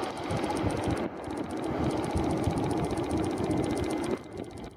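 A machine engine running steadily with a fast, even ticking pattern over a low hum, dropping away abruptly about four seconds in.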